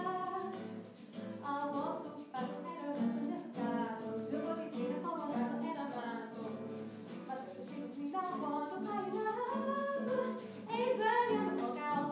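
A woman singing a slow melody with acoustic guitar accompaniment, her held notes wavering with vibrato in the second half.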